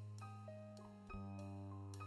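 Instrumental background music: a held bass note that changes about a second in, with short plucked notes above it.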